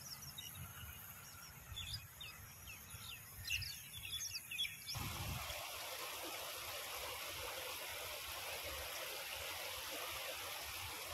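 Small birds chirping over wind rumbling on the microphone. About five seconds in, the sound cuts to a steady rush of flowing water.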